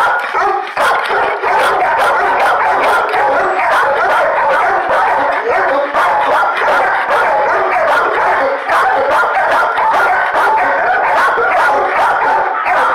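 Dogs barking nonstop in a shelter kennel row, the barks overlapping into a loud, unbroken din, with the dog at the bars barking up at the camera among them.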